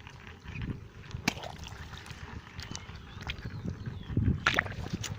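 Sloshing and squelching of wet mud and water as hands dig into a rice-field crab hole, with a few sharp clicks and knocks.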